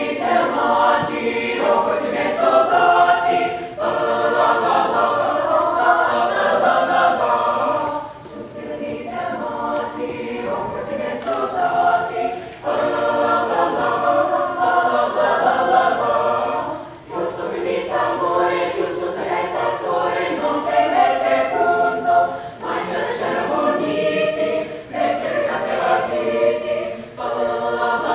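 Mixed-voice school choir singing, in sustained phrases of about four to five seconds with brief pauses for breath between them.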